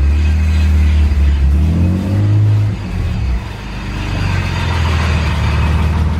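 BMW E46 engine running, rising in pitch for about a second around two seconds in, dropping back near three seconds, then running steadily. This is the engine that the owners take for having rod knock, probably from a spun bearing.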